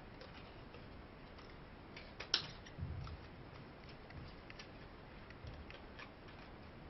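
Scissors cutting through cardboard: faint, scattered snips and small clicks, with one sharper snip a little over two seconds in.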